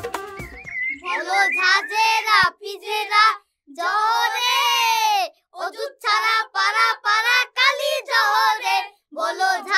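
A boy singing solo and unaccompanied, in short phrases with gaps for breath and one long held note near the middle. A brief tail of drum-backed music cuts off at the very start.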